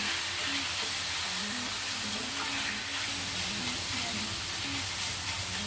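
Marinated pork belly sizzling steadily in hot oil in a wok, an even frying hiss.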